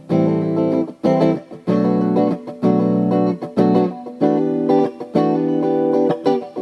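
Fernandes FR-75-3S electric guitar playing chords, struck roughly once a second with short breaks between them.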